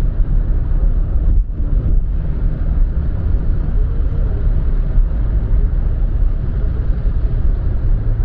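Steady road and engine rumble inside a moving car's cabin at highway speed.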